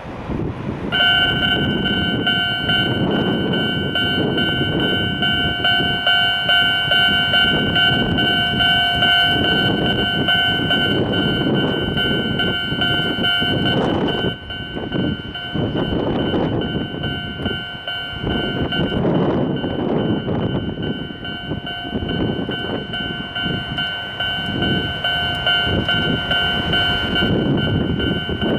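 Japanese level-crossing alarm on the Enoden line, starting its steady electronic ringing about a second in and ringing on, while an Enoshima Electric Railway train passes over the crossing.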